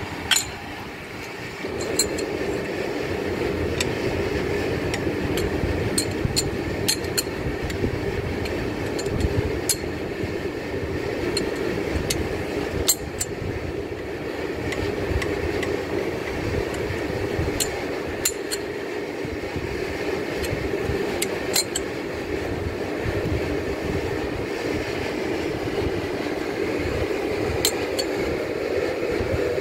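Scattered sharp metallic clinks of a wrench on the crankshaft main bearing cap bolts of a Fiat 100-90 DT tractor engine as the bolts are turned a further 90 degrees for their final tightening, over a steady low hum that starts about a second and a half in.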